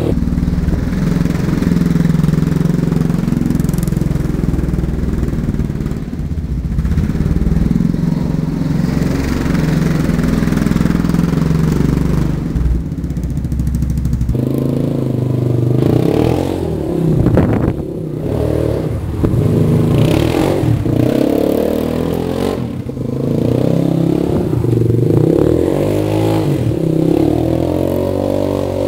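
Suzuki LTZ250 quad's single-cylinder four-stroke engine running and revving as the quad drifts in circles on snow. The pitch rises and falls repeatedly in the second half.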